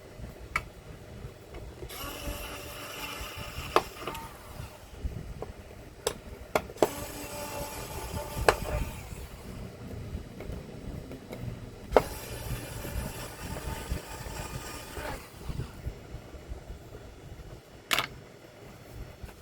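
Handling noise with scattered sharp clicks and knocks, about seven in all, as screws are taken out and the power board is removed from the TV's chassis.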